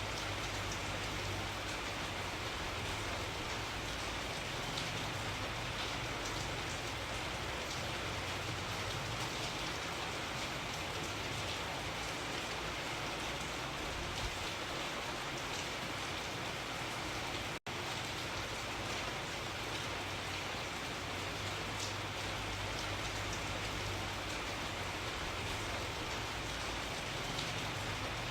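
Steady rainfall: an even hiss of rain on surfaces, with scattered drop patter and a low rumble underneath. The sound cuts out for an instant about two-thirds of the way through.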